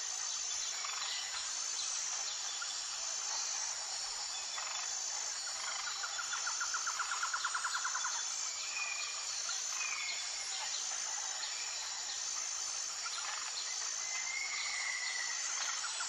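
Forest ambience: a steady high insect drone with a pulsing buzz that repeats about every second and a half. About six seconds in comes a fast trill lasting a couple of seconds, and short bird chirps sound a few times after it.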